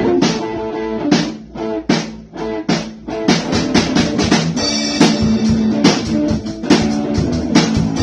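Guitar and drum kit playing together in a band jam: a few stop-start accented hits in the first three seconds, then a steady driving beat under strummed chords.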